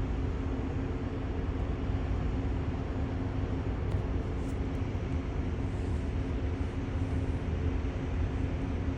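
Steady low machine hum and rumble with a few held tones, even throughout, in outdoor background noise.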